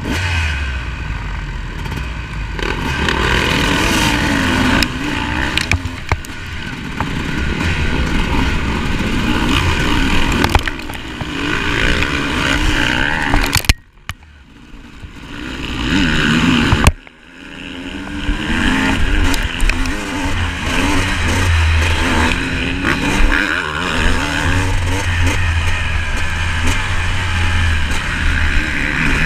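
Honda CR 250 two-stroke motocross bike revving hard under full throttle as it races among other dirt bikes, heard up close from on the bike. Around the middle the sound drops away sharply twice, a few seconds apart, before the engine comes back in.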